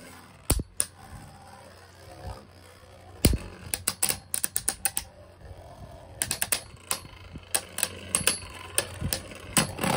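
Two plastic Beyblade spinning tops whirring in a plastic Beyblade Burst stadium, clacking against each other in quick clusters of sharp hits with quieter spinning between.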